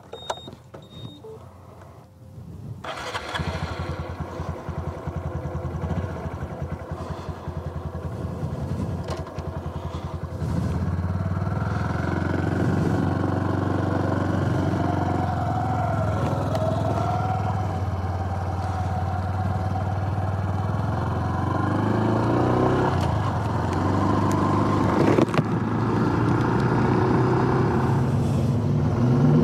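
Honda Super Cub C125's single-cylinder four-stroke engine starting about three seconds in and idling with a fast even beat, then pulling away about ten seconds in and running under way, its pitch rising and falling as it accelerates.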